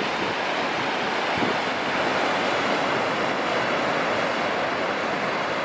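Steady rushing of surf and moving water, with wind buffeting the microphone; no distinct engine note stands out.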